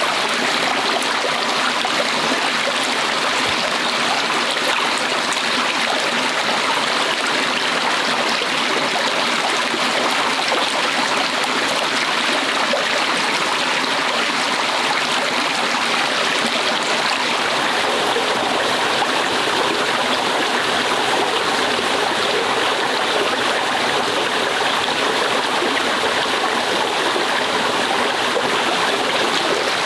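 Shallow rocky stream running steadily over stones, an even rush of water.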